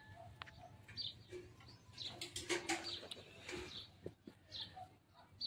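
Birds chirping: short calls repeated every half second or so. A few light clinks, steel utensils being handled, come in between.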